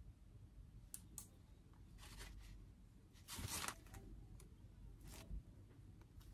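Near-quiet kitchen with a few faint taps and a brief soft rustle about three seconds in, small handling noises from working macaron batter.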